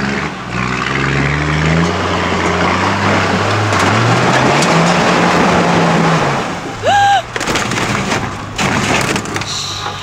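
Toyota LandCruiser 75 Series engine revving hard, its pitch climbing twice, as the vehicle claws up a steep rock step with tyres spinning in loose dirt. About seven seconds in comes a short rising cry, then a run of heavy thumps and scraping as the vehicle rolls over onto its side.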